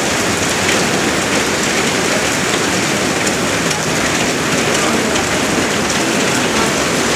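Heavy hail pelting a car's windscreen: a loud, dense, steady clatter of countless small ice impacts.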